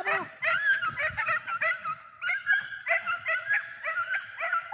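Hunting dogs giving tongue on a rabbit's scent: high, quick, overlapping yelps, repeated without a break.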